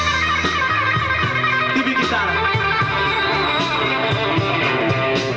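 Live band playing a rock jam, with electric guitar to the fore over a drum kit.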